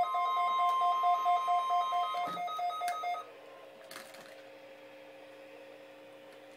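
Weather-radio emergency alert tones: the steady 1050 Hz warning alarm tone over a fast, evenly pulsing beep. Both cut off abruptly about three seconds in. A few clicks follow, then faint radio hiss with a low steady hum until the broadcast voice comes on.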